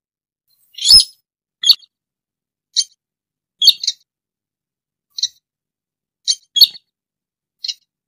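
Slaty-breasted rail (sintar) giving about nine brief, high calls at irregular intervals, some in quick pairs; the first, about a second in, is the loudest and carries a low thud. It is a lure recording played to draw the bird in for trapping.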